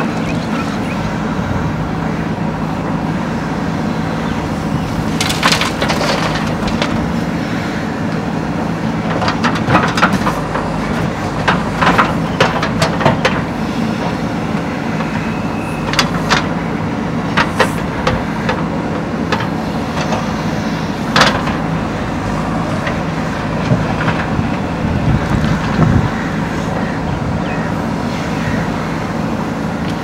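JCB 3DX backhoe loader's diesel engine running steadily under load as the backhoe works, with scattered sharp clanks and knocks from the machine's arm and bucket.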